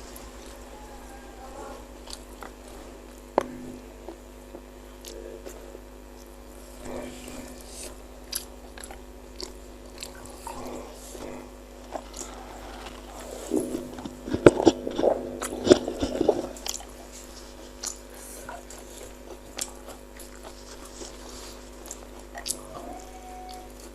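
Close-miked mouth sounds of a person biting and chewing bakso mercon meatballs, with scattered short wet clicks and a denser run of louder chewing clicks about two-thirds of the way through. A faint steady hum lies underneath.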